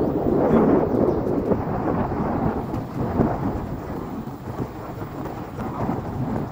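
Wind buffeting the microphone of a camera carried on a moving vehicle, a loud rough rumble mixed with road noise, strongest about a second in.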